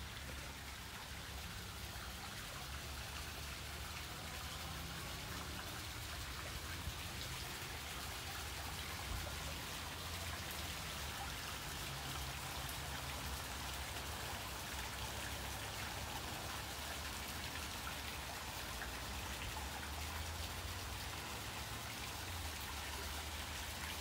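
Small garden waterfall splashing and trickling steadily over rocks into a pond, with a steady low rumble underneath.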